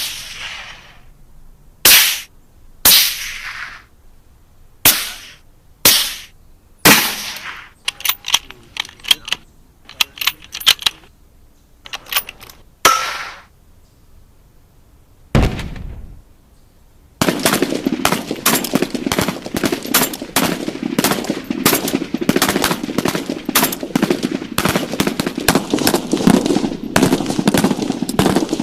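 Gunfire: a string of single shots a second or so apart, each ringing out in a short echoing tail, then a few quick short bursts and one heavier, deeper shot. A bit past the middle it changes to sustained rapid automatic fire that runs on without a break.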